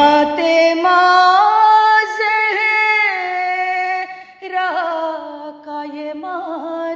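A single voice singing an Urdu nauha, a lament for Bibi Fatima, in long drawn-out notes that glide and waver between pitches. There is a short break for breath about four seconds in.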